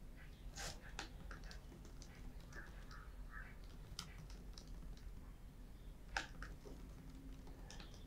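Faint typing on a computer keyboard: irregular key clicks, one a little louder about six seconds in.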